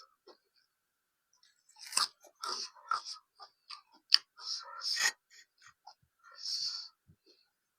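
A person chewing and crunching food close to the microphone: irregular wet mouth clicks and crunches, starting after a quiet second or so.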